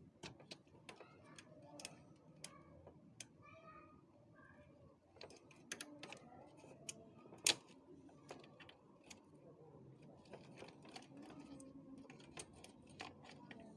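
Scattered light clicks and taps of small plastic and metal copier parts being handled and fitted, with one sharper, louder click about seven and a half seconds in.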